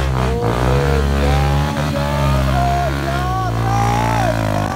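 Honda CRF dirt bike's single-cylinder four-stroke engine revving hard under load as it climbs a steep, slippery dirt bank, with people shouting over it.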